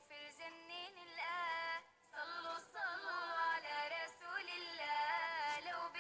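A female voice singing a nasheed without percussion, in bending, ornamented lines, with a brief break about two seconds in.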